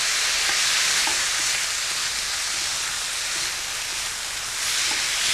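Mutton strips with garlic, ginger and spring onion sizzling in hot sesame oil in a wok as they are stirred: a steady frying hiss with a few faint ticks.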